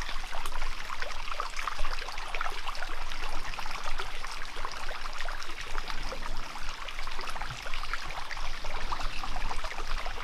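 Running water of a small creek, a steady rushing trickle with fine splashing ticks.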